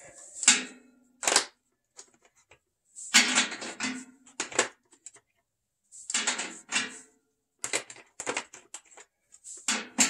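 Socket wrench and steel sockets clicking and clinking in short bursts of rapid clicks.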